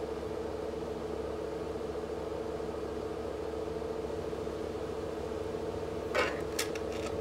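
Bathroom exhaust fan running with a steady hum. About six seconds in, a few sharp clicks or rattles.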